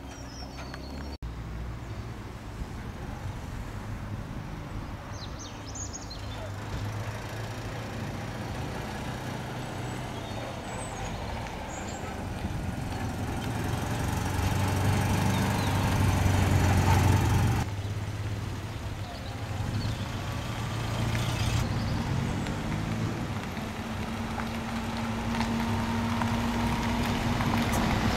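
Car engines running as cars drive past, heard across several abrupt cuts. The rumble swells to its loudest a little past halfway, breaks off, and a steady engine hum comes in near the end.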